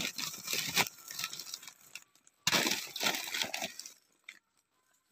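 Paper lining crinkling and rustling as hands arrange a pile of green grapes packed in it, in two bursts, the second starting about halfway through.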